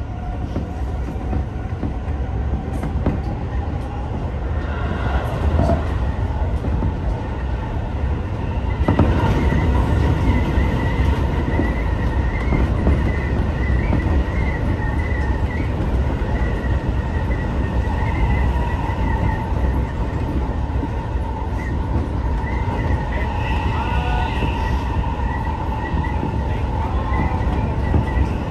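Seibu 30000 series electric train running, heard from inside the front car: a steady rumble of wheels on rail. From about nine seconds in, thin squealing tones waver in pitch above it, wheel squeal on the track.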